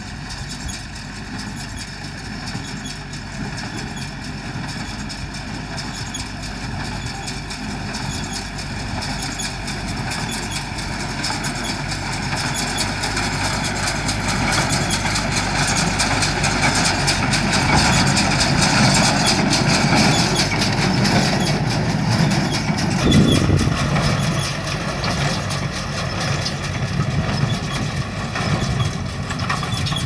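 Tractor diesel engine running while towing a small square baler that picks up and bales straw. The sound grows louder as the machine drives past close by around the middle, then eases off a little as it moves away.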